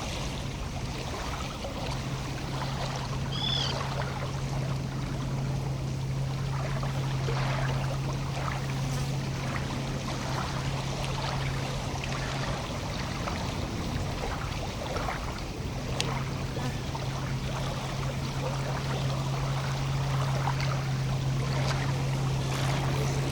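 Lake water lapping and trickling along the shore in small crackling splashes, over a steady low hum that drops out for a few seconds around the middle. A bird chirps briefly a few seconds in.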